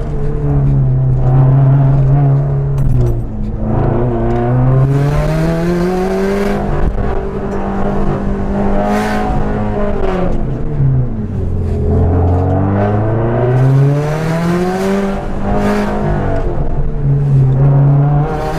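2017 Subaru WRX STI's turbocharged 2.5-litre flat-four under hard use on an autocross course, heard inside the cabin. The revs climb and drop again and again as the car accelerates and slows between cones, falling lowest a little past halfway.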